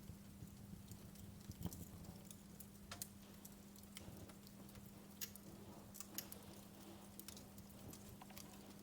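Wood fire in a fireplace crackling softly: irregular pops and snaps from the burning logs, a few sharper ones standing out, over a faint steady low hum.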